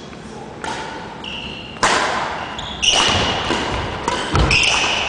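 Badminton rally: rackets strike the shuttlecock with sharp cracks about once a second, sneakers squeak briefly on the hardwood gym floor, and a heavier footfall thuds near the end. Each hit echoes in the hall.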